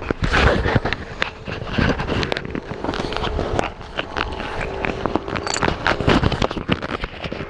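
Irregular rustling and crackling with many short clicks and scrapes: movement close to the microphone.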